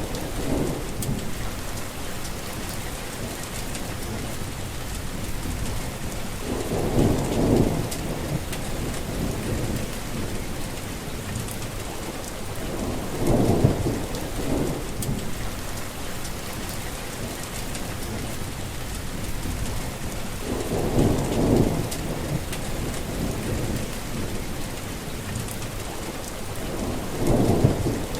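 Heavy rain falling in a steady hiss, with a short low rumble of thunder about every seven seconds, four in all.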